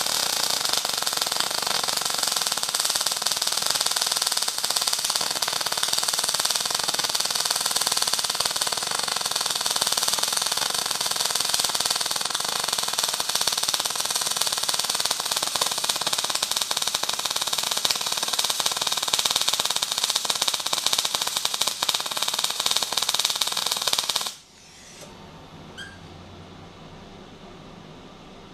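MIG welding arc from a Magmate 150 crackling and sputtering steadily for about 24 seconds, then cutting off suddenly. A faint low hum of the welder remains after the arc stops.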